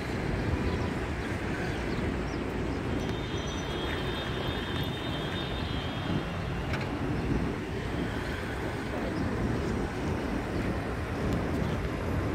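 Steady city street traffic noise, with wind buffeting the microphone and a faint high whine a few seconds in.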